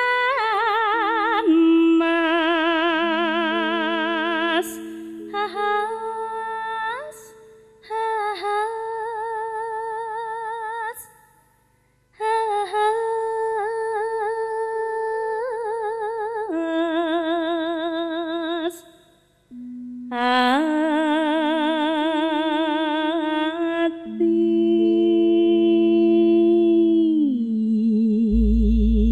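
Javanese female singer (sinden) singing a slow jineman in long melismatic phrases with heavy vibrato, over sustained electronic keyboard notes. She breaks briefly between phrases twice, and a deep bass note enters near the end.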